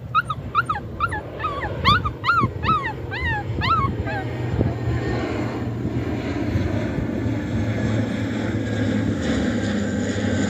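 A Maltese dog whining in a quick string of about a dozen high, falling yelps for the first four seconds, crying because its owner has walked away. From about five seconds in, an airplane passing overhead gives a steady, swelling noise to the end.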